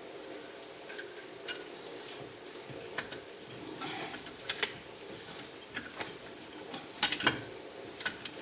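Scattered metal clinks and clanks of hand tools being handled while a C-clamp of the right size is picked out, with two louder clanks, one about halfway through and one about seven seconds in.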